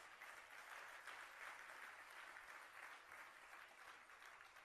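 Faint applause from a seated audience, a steady patter of many hands clapping that slowly dies away toward the end.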